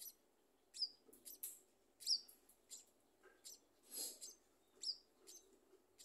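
Scaly-breasted munia nestlings giving thin, high begging cheeps: about a dozen short calls at an irregular pace of roughly two a second, a few sliding quickly downward, the loudest about two seconds in.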